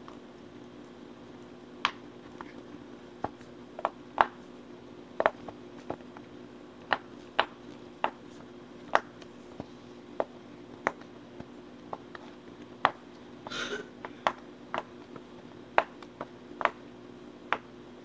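Bubbles of a round silicone push-pop fidget toy being pressed through one at a time with the fingers: a string of sharp, irregular pops, roughly one or two a second, over a faint steady hum.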